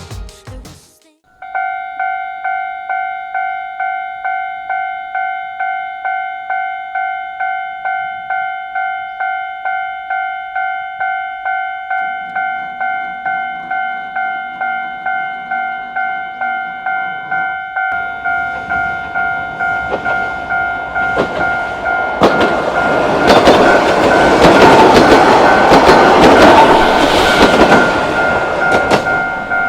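Japanese level-crossing bell ringing in a steady two-tone ding about twice a second. About 18 s in, the rumble of an approaching Sangi Railway Hokusei Line narrow-gauge train joins it. The train passes loudest over the last several seconds, its wheels clicking over the rail joints while the bell keeps ringing.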